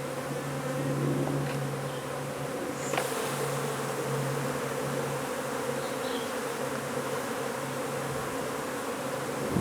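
A disturbed colony of honey bees buzzing steadily in a loud, continuous hum, the swarm of an opened hive.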